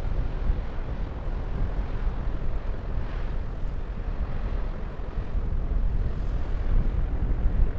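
Wind rumbling over the microphone: a steady low noise with no distinct engine tone or clicks.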